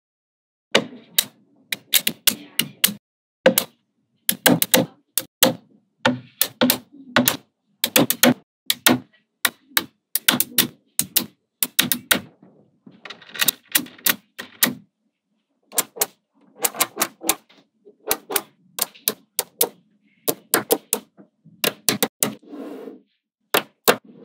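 Small magnetic balls clicking sharply as strips of them are snapped onto a magnetic-ball wall, in quick irregular clusters of clicks with short pauses between.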